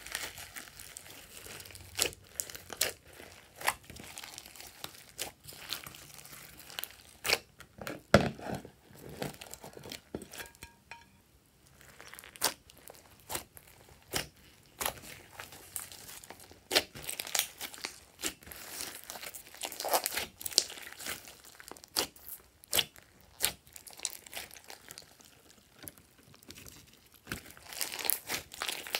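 Glossy slime mixed with foam beads being squeezed and kneaded by hand: a run of irregular wet clicks, pops and crackles as air pockets burst and the beads are pressed, with a brief lull about eleven seconds in.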